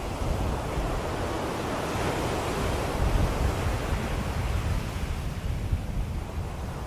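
Ocean waves washing on a shore, a steady surf that swells about two to three seconds in and then slowly eases off.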